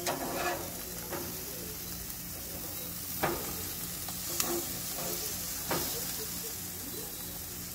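Burger patties and chicken wings sizzling over the flames of a gas grill, with a steady hiss. About five short scrapes and clicks come from a metal spatula and tongs on the grate as the meat is turned.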